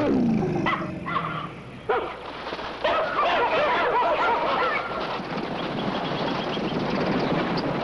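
Baboon alarm calls: a loud falling call, then a burst of many short overlapping calls about three seconds in. These give way to a steady rushing noise of fleeing hooves.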